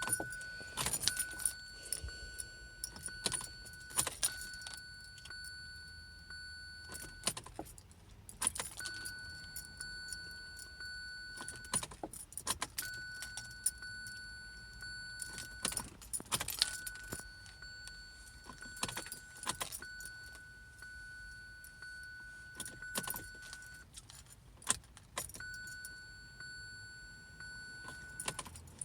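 Keys jangling and clicking in the ignition of a 2017 Kia Sorento as the key is turned again and again, about every four seconds, without the engine starting. A steady high electronic chime sounds between turns and breaks off at each turn.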